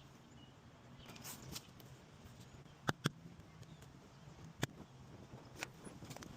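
A few sharp clicks or taps over a faint steady low hum: two close together about three seconds in, then single ones near the end.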